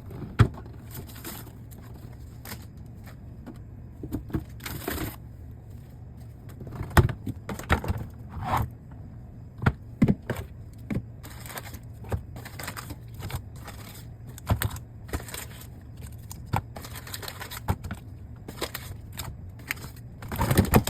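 Groceries and paper being handled: scattered knocks, clicks and short rustles of packaging being set down and moved, over a low steady hum.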